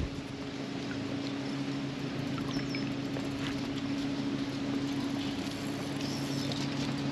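Boat motor running steadily at idle: an even, unchanging low hum.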